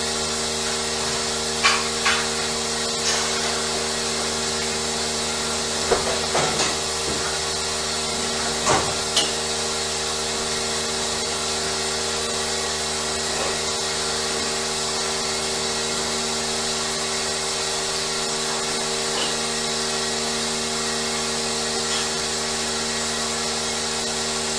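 Steady mechanical hum with a high hiss, with a few light knocks and clatters in the first ten seconds.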